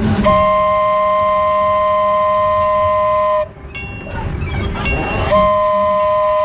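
Narrow-gauge locomotive's two-note horn sounding two long, loud blasts close up, the first lasting about three seconds, with the train's running rumble in the short gap between them.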